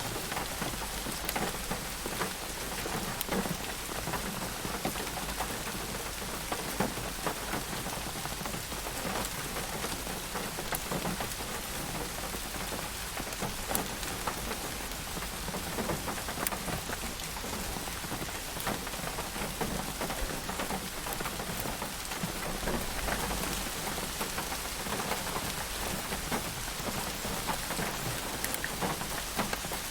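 Steady rain falling, an even hiss dotted with many separate drop ticks.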